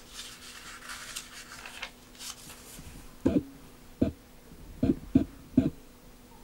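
Paper rustling as a page of an old pocket paperback phrase book is turned. In the second half come several dull knocks, which are the loudest sounds, over a faint steady hum.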